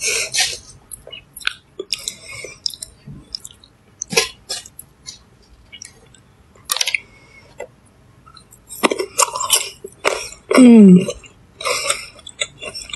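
Close-up mouth sounds of a person chewing food: irregular wet clicks and smacks. Near the end comes a louder cluster that includes a short voiced sound falling in pitch.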